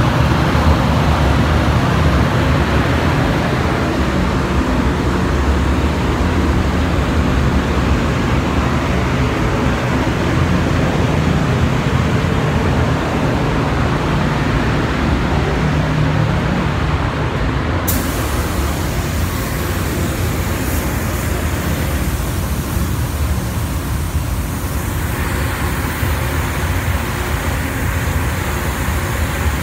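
Paint booth air equipment running with a steady low rumble. A little past halfway, a hiss of compressed air from a paint spray gun spraying joins it.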